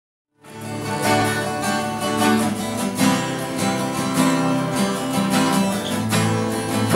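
Acoustic guitar strummed as the song's instrumental introduction, starting about half a second in after silence.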